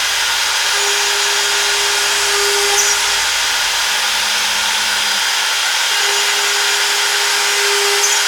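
CNC router running and cutting: a loud, steady spindle whine. Under it a lower tone sounds for a couple of seconds, drops out and comes back.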